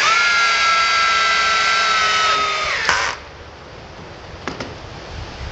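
Two cordless drills, a Bosch GSB 18V-150 C and a Makita 40V, driving long structural wood screws on high speed: a steady motor whine that sags slightly in pitch under the growing load, then cuts off about three seconds in as the tools stop themselves once the screw heads seat.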